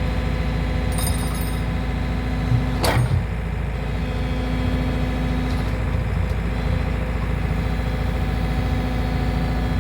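Excavator's diesel engine running steadily, with a sharp clank about three seconds in.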